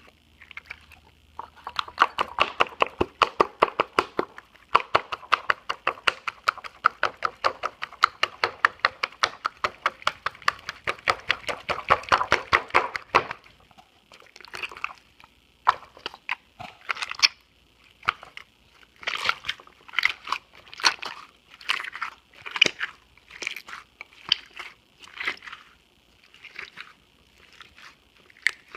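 Slime being squeezed and worked in the hands, making wet, fart-like popping and squelching noises. A fast run of rapid pops lasts about twelve seconds, then gives way to slower, separate squelches about once a second.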